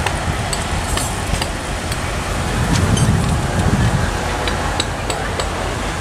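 Steady low rumble of engines and road traffic, with scattered faint clicks.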